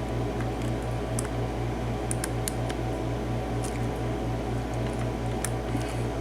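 Faint, scattered ticks and scrapes of a lock pick working the pins of a six-pin Lockwood padlock. Under them runs a steady low hum that pulses evenly several times a second.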